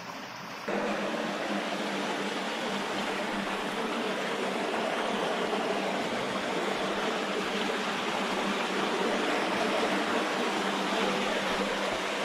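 Shallow water rushing steadily over a low bank and along a channel, a stream-like rush that jumps louder about a second in.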